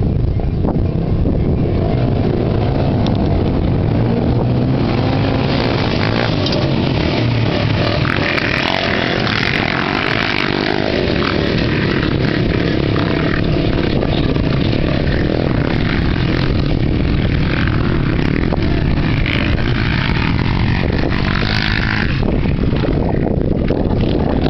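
A pack of racing quad bikes (ATVs) with their engines revving, growing louder about five seconds in as the pack gets under way and comes past close by.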